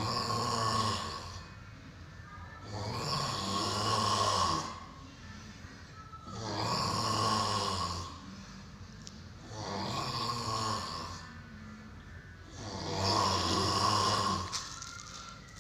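A person snoring: one long snore about every three and a half seconds, five in all.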